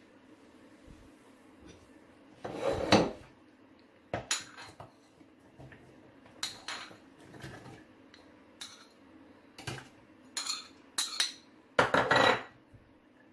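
Kitchen dishes and utensils clinking and knocking in short, irregular clatters while a cut-up onion is handled.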